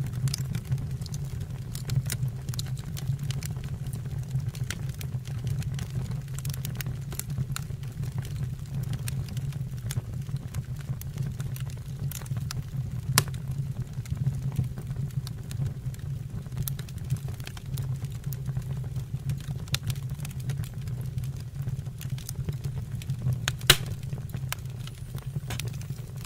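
Wood fire burning, with irregular crackles and pops over a steady low rumble of the flames; two pops are louder, about halfway through and near the end.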